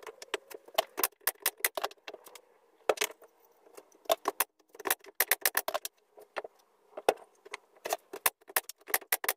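Rapid, irregular sharp clicks and knocks: wooden strips being fitted together and a nail gun firing as a glued finger-jointed frame panel is pinned together.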